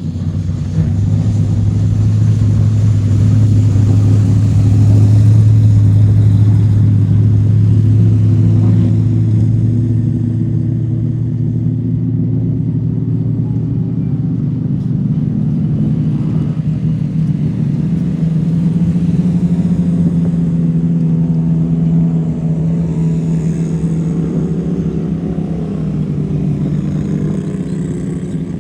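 Off-road UTV engine running continuously at a steady pitch. It eases off slightly about ten seconds in and picks up again around eighteen seconds in.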